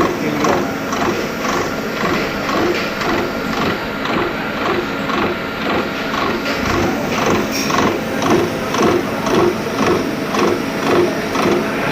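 CNC milling machine cutting, a steady mechanical clatter that pulses evenly a few times a second.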